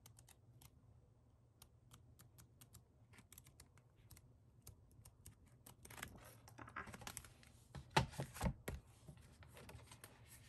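Pages of a K-pop album photobook being turned by hand: faint light ticks at first, then louder paper rustling and flapping from about six seconds in, loudest around eight seconds.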